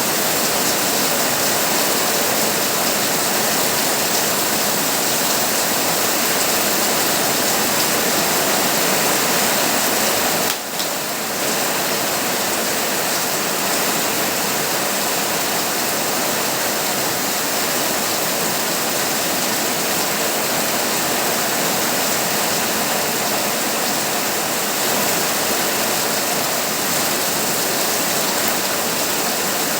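Heavy rain pouring steadily on a tin roof, an even hiss of water, briefly dipping about ten seconds in.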